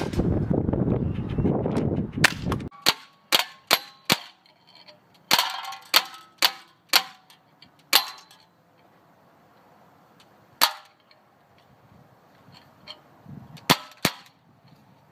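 Umarex H&K MP5 K-PDW CO2 BB gun (semi-auto, blowback) shot singly about a dozen times. The cracks come in quick runs, then more spaced out near the end, some with a short metallic ring. A loud rushing noise fills the first couple of seconds and cuts off before the first shot.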